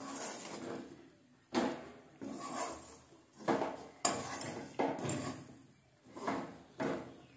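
Steel spoon scraping and knocking against the inside of a steel kadai as a thick, crumbly chicken leto mixture is stirred and pressed. The strokes come one after another, about one or two a second, each starting suddenly and fading.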